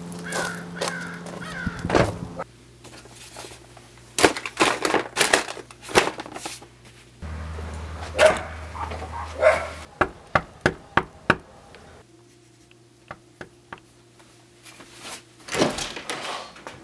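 Cut-together handling sounds: a car door shutting with a thud about two seconds in, a run of quick footstep clicks on a wooden deck, and a house door opening near the end. Three short high calls sound in the first two seconds.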